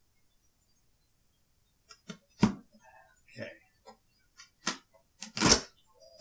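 Cardboard shipping box being handled and its flaps pulled open: a handful of short, sharp knocks and scrapes of cardboard starting about two seconds in, the loudest about five and a half seconds in.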